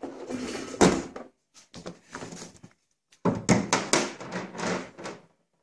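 Tools knocking and being handled on a car door panel. There is one sharp knock about a second in, then after a short pause a quick run of taps and clatter.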